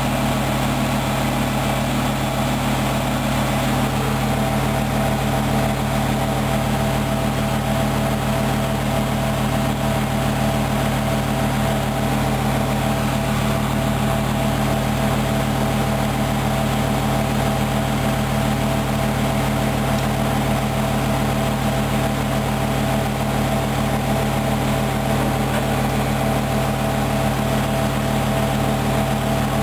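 Hoover Dynamic Wash washing machine in its final high-speed spin, up to 1200 rpm: the motor and drum run at a steady speed with a constant hum and several held tones.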